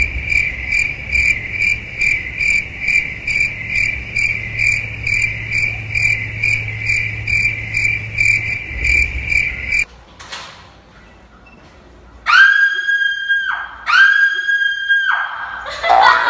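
Cricket-chirp sound effect: a steady, high, even pulsing about three chirps a second that cuts off suddenly after about ten seconds. After a short quiet gap come two long, steady electronic tones, one after the other.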